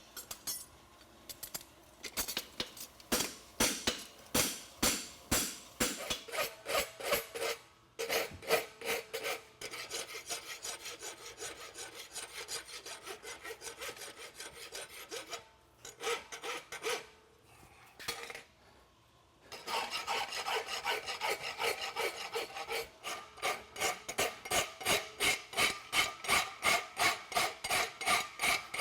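Hand file being stroked over the edges of a forged steel horseshoe to dress it, in repeated scraping strokes about two a second. The strokes stop for a few seconds about two-thirds of the way through, then resume faster and steadier.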